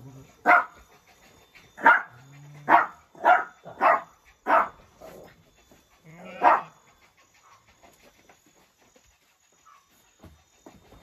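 A dog barking: about seven short, loud barks spread over the first seven seconds, most of them in a quick run in the first five seconds.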